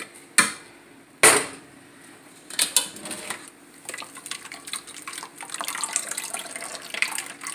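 Two sharp knocks of kitchen containers, then vegetable juice being poured and splashing for about five seconds.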